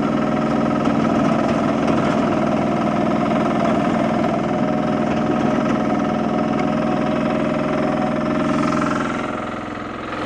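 Engine of a compact farm yard loader running steadily as it drives off, quieting somewhat near the end.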